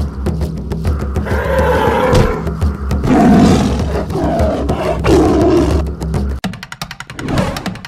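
Big-cat roar sound effects, three long roars in a row, over a steady low-pitched background music track that stops about six and a half seconds in.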